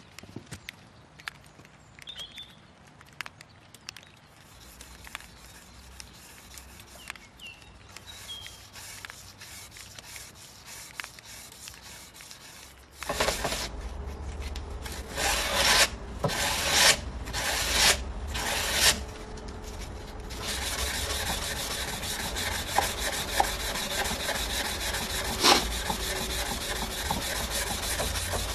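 A blade being worked with an abrasive. It is quiet with scattered clicks at first. About thirteen seconds in, loud rasping begins: five separate strokes, then steady continuous rubbing.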